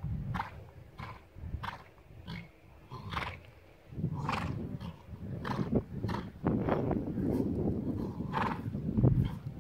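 A horse cantering on a sand arena: short, dull bursts come roughly once a second over a heavy, gusting wind rumble on the microphone.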